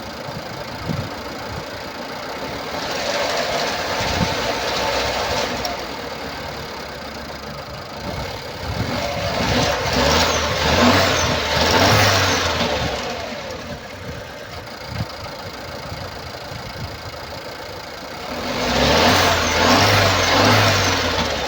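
2016 Nissan Pulsar C13's 1.2-litre turbocharged four-cylinder petrol engine (HRA2DDT) idling and revved up three times, each time for a few seconds, before dropping back. It makes the unusual engine noise caused by a burnt-out exhaust valve.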